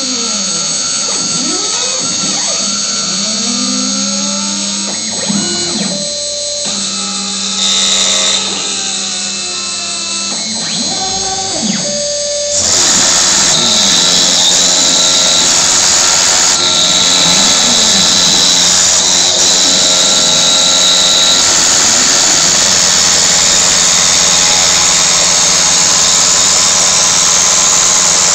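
CNC router engraving plexiglass: the stepper motors whine in rising and falling glides as the axes move, over a steady spindle tone. About halfway through, a louder, steady hiss sets in and runs on.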